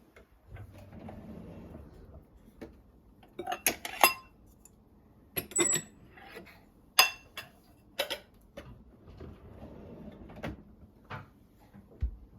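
Kitchen dishes and utensils clinking and knocking as they are handled, with a few sharp ringing clinks among softer knocks.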